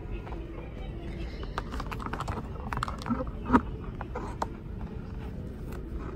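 Handling noise: a run of small clicks and knocks as a plush clown doll is gripped and moved on a pegboard shelf, the loudest knock about three and a half seconds in, over a steady low hum.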